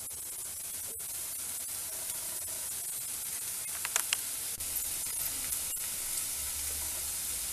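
Onion and spice masala sizzling in oil in a frying pan, a steady hiss, with a few light clicks of a wooden spatula about four seconds in.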